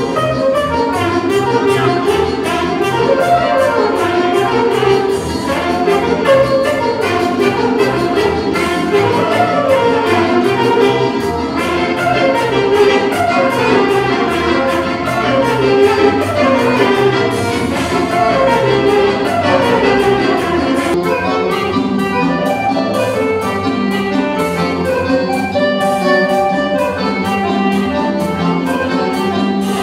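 Live band playing dance music: accordion and saxophone melodies over a steady beat.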